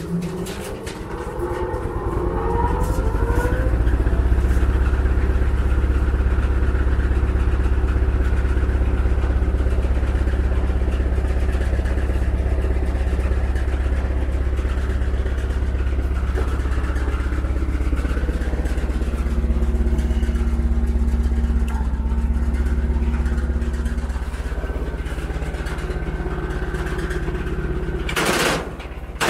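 Eberl SH 20 stationary chopper, driven by an electric motor, running up to speed over the first few seconds with a rising whine, then running steadily empty with a deep hum. A brief louder rush comes near the end.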